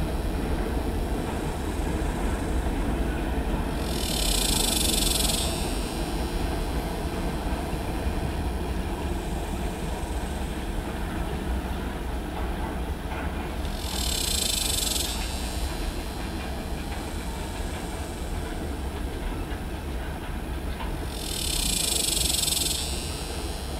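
Freight train cars rolling past with a steady low rumble. Three short bursts of hiss, each about a second long, come at roughly 4, 14 and 22 seconds in.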